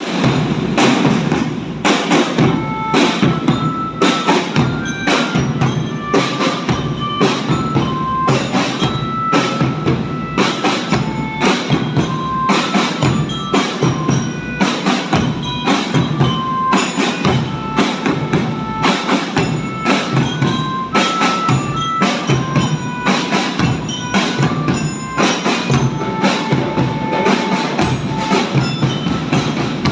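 An Indonesian drumben (marching drum band) playing in practice: drums strike a steady rhythm under a melody of short ringing notes from a bell-lyra (marching glockenspiel).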